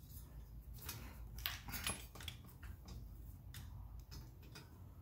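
Faint, irregular metallic clicks and scrapes as a metal radiator guard and its mounting bolt are worked into place by hand with a small socket, over a low steady hum.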